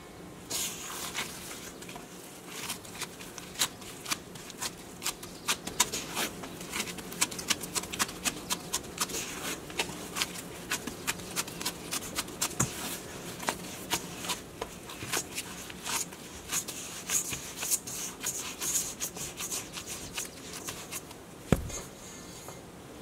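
Gloved hand folding soft, sticky bread dough in a stainless steel bowl: an irregular run of wet sticky smacks and clicks, several a second. One dull thump near the end.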